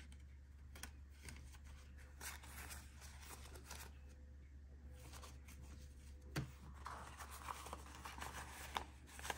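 Faint rustling and flicking of paper banknotes handled and counted by hand, in short crisp bursts with a lull about halfway through.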